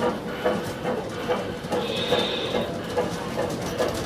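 G scale model train running on a garden-railway-scale layout, giving a regular rhythmic clatter of about two to three beats a second over a steady hum.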